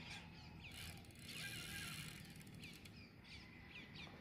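Faint ratcheting and whirring of a fishing reel while a hooked fish is being played. Short high chirps repeat throughout.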